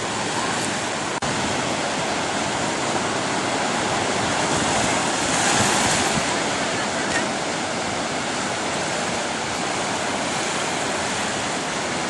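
Small waves breaking and washing through shallow surf, a steady rush of whitewater that surges louder about five to six seconds in.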